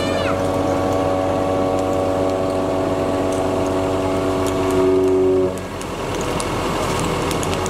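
A steady held tone with many overtones sounds for about five seconds, swells just before it cuts off, over the noise of a big pine-torch fire with scattered faint crackles.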